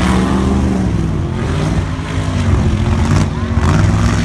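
Two gasser drag cars' engines at full throttle as they launch off the line and run down the strip, loud throughout, dipping about two seconds in and swelling again near the end.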